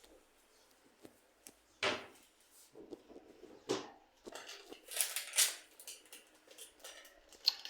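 Kitchen handling noises: two sharp knocks, then short bursts of scraping and rustling, like utensils, dishes or pans being picked up and set down.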